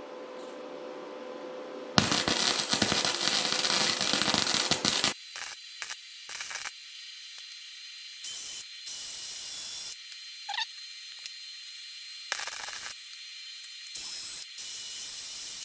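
Electric welding arc crackling and hissing in a run of about three seconds, then a string of shorter, fainter bursts as the frame's steel is welded.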